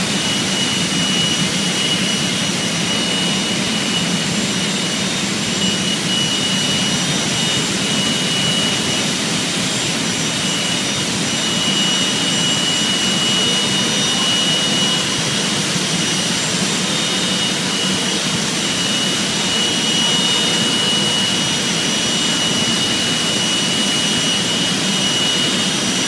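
Steady, loud roar of an open-hearth steelmaking furnace shop in operation, with a thin high whine and a low hum running through it.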